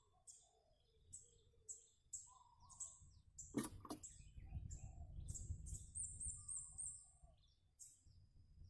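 Small birds chirping, short high calls repeating about twice a second. About three and a half seconds in there are two sharp clicks, followed by a few seconds of low rumbling noise.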